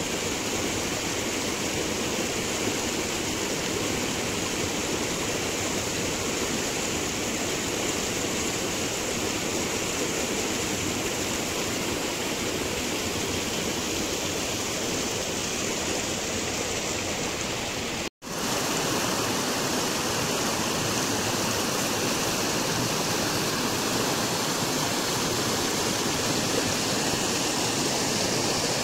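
Water of a small waterfall falling and splashing, a steady, even rush of noise. The sound cuts out for an instant about two-thirds of the way through, then carries on as before.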